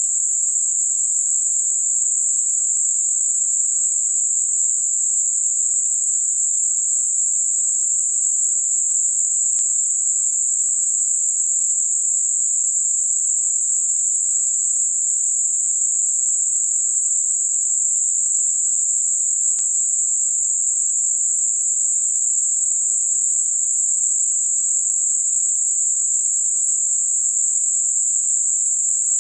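Synthetic 7.5 kHz Gaussian narrow-band noise: a steady, high-pitched hiss with nothing in the low or middle range, used as a tinnitus masking sound.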